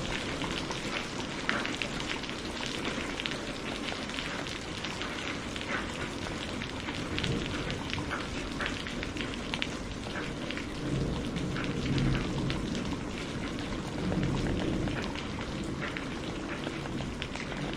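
Steady rain, with many sharp drop hits close by. Low rumbles of distant thunder swell up twice in the second half.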